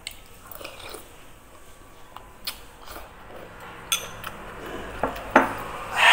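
Close-miked chewing of a mouthful of rice and food, with a few sharp clicks of a metal spoon against a ceramic bowl. A loud breathy sound comes at the very end.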